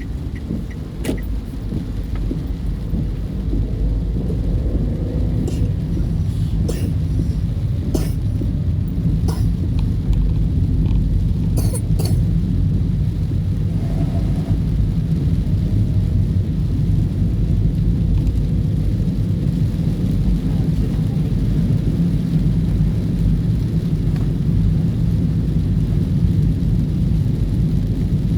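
Heavy rain drumming on a car in a thunderstorm, heard from inside the cabin as a steady low rumble, with scattered sharp taps during the first dozen seconds.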